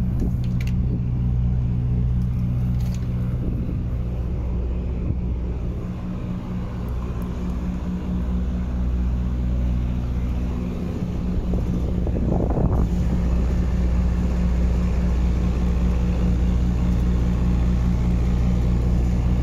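Diesel engine idling steadily with an even low hum, with a brief burst of noise about twelve seconds in.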